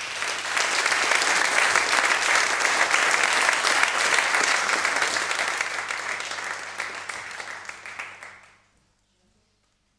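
Audience applauding. The clapping builds over the first second, then thins out and stops about eight and a half seconds in.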